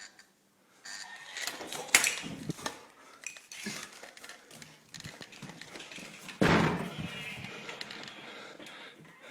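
Bangs and thumps in a small room, recorded on a phone: a sharp bang about two seconds in and a heavier thump about six and a half seconds in, among smaller knocks and rustling.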